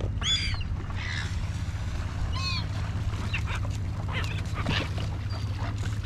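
Silver gulls calling: several short, high squawks, the clearest near the start and a little before halfway, over a steady low rumble.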